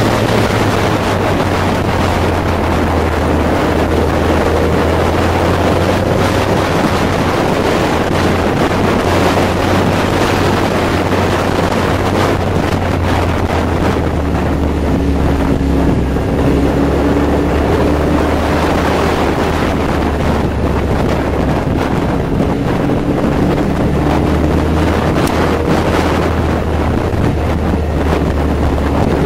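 Kawasaki Z1000's inline-four engine running under way, its pitch drifting up and down with the throttle, heard from the moving motorcycle with heavy wind noise on the microphone.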